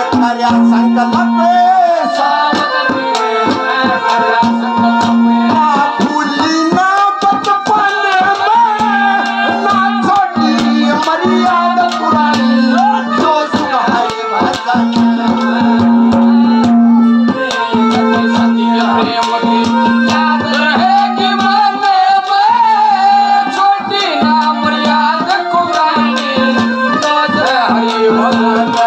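Live Haryanvi ragni music: a harmonium-like melody over a held low note that breaks off and returns, with quick hand-drum strokes and jingling percussion, and a male voice singing at times.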